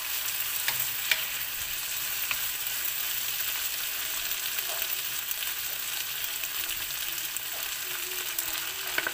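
Sweet potato, carrot and ground pork sizzling steadily in a hot wok, with a few sharp clicks and scrapes from a wooden spatula stirring them.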